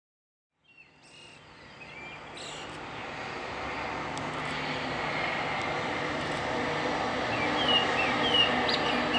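Rumble of an approaching train hauled by a WAP-7 electric locomotive, with a steady low hum, growing steadily louder. A bird chirps several times near the end.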